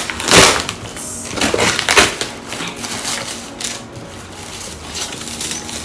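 A parcel's packaging being torn and opened by hand: several loud tearing and crinkling bursts in the first two seconds, then lighter rustling that dies down about four seconds in.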